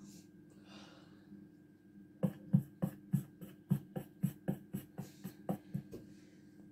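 Cartoon sound effect playing from a TV: a run of about fifteen sharp clicks or rattles, three to four a second, starting about two seconds in.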